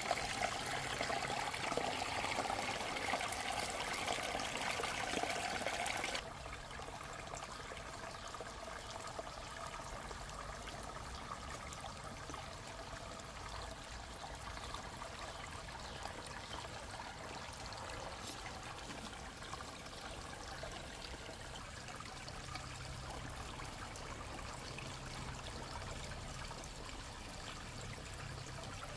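Shallow creek water running and trickling over rocks. It is louder for the first six seconds, then drops suddenly to a quieter, steady trickle.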